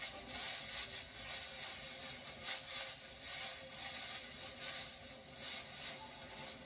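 Faint irregular rustling and handling noise from a gift box being worked at to get it open, over a low steady rumble.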